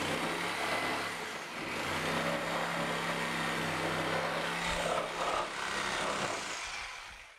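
Corded reciprocating saw running steadily as it cuts through the end of a wooden stair tread nosing at the stringer, its motor hum steady under the cutting noise. The saw dies away near the end.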